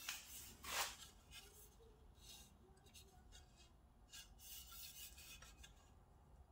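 Faint rubbing and scuffing of hands sliding over and turning a sanded wooden canoe yoke: a string of short swishes, the loudest about a second in.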